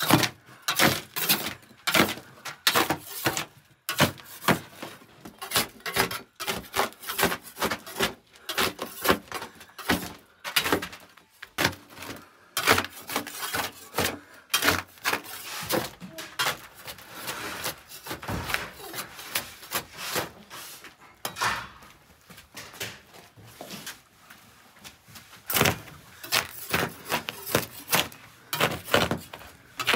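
A hand scraper scraping and knocking against the baked clay wall of a tandoor as flatbread loaves are pried off, making a rapid, irregular series of scrapes and clicks. The strokes thin out for a few seconds past the middle.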